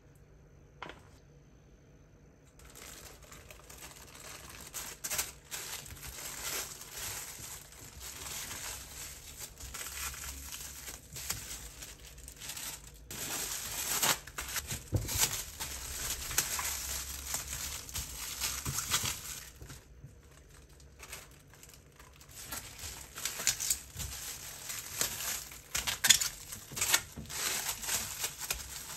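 Plastic cling wrap and baking paper crinkling and rustling as a filled tortilla wrap is wrapped tightly by hand, starting a couple of seconds in, with many small sharp crackles.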